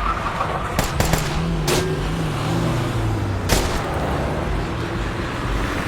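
Several sharp gunshots, a cluster of them about a second in and another past the middle, over the steady low running of a vehicle engine: a film soundtrack of a vehicle under fire.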